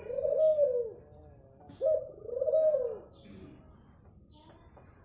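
Zebra dove (perkutut) cooing: two loud arching coos about a second and a half apart, the second led by a short note. A thin, steady high-pitched tone runs underneath.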